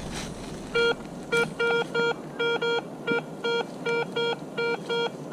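Garrett ACE 250 metal detector beeping, signalling buried metal: about a dozen short, even beeps, two to three a second, starting about a second in.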